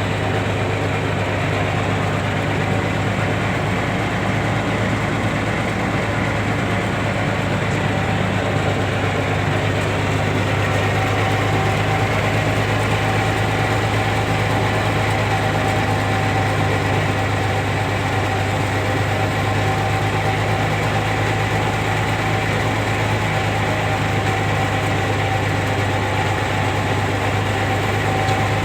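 Caterpillar D6D crawler bulldozer's diesel engine running steadily with a deep drone; a thin higher whine grows clearer about ten seconds in.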